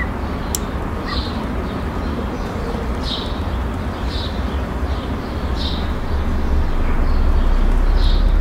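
Outdoor street ambience: a steady low rumble that grows louder from about six seconds in, with a few short, high bird chirps every second or two and a single sharp click about half a second in.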